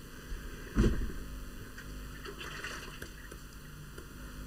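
Low steady electrical hum with faint background noise, and one short low sound about a second in.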